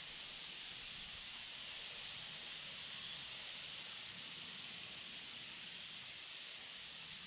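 Steady, even hiss of outdoor background noise, with no bird calls or other distinct sounds.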